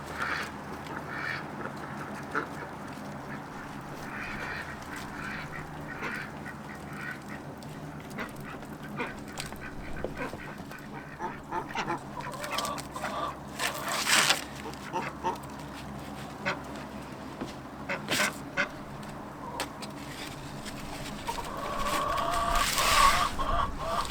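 Poultry calling on and off, with a louder call near the end and a few sharp clicks in between.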